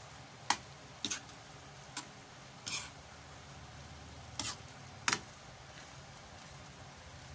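A spatula knocking and scraping against a pan while stirring stir-fried noodles, about half a dozen irregular clacks and short scrapes. A faint steady sizzle of the frying food runs underneath.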